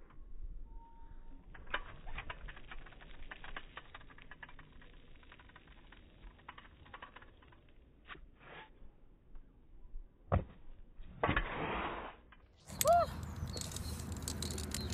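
Stunt scooter wheels rolling and clattering over rough, wet skatepark concrete, with a few knocks and one sharp landing impact about ten seconds in, then louder rolling toward the end.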